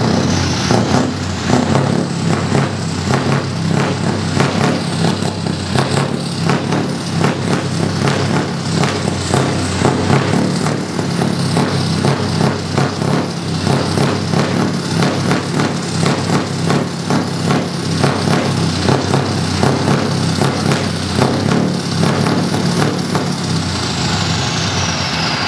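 Scania R500 V8 diesel tractor unit running at low speed, its engine note swelling and falling repeatedly as the throttle is worked. A faint high whistle falls in pitch near the end.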